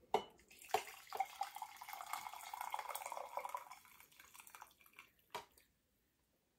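Water poured from a stainless steel kettle into a ceramic mug for tea, running for about three seconds before it trails off. A few light knocks come as the pour begins, and one more click about five seconds in.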